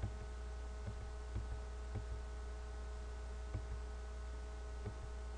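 Steady low electrical mains hum on the recording, with a few faint short clicks scattered about a second apart.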